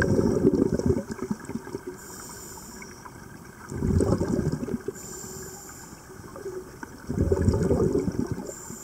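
Scuba diver breathing through a regulator, heard underwater: three loud rushes of exhaled bubbles, about three and a half seconds apart. Between them come fainter high hisses as the regulator delivers air on each inhale.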